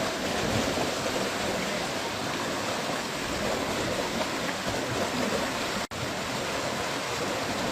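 Flood water rushing steadily, with a brief dropout about six seconds in.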